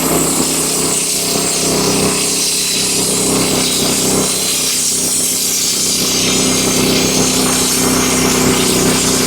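Wood-Mizer LX25 band sawmill running steadily under load as its band blade cuts lengthwise through a hemlock beam, with an engine hum under a hissing cut.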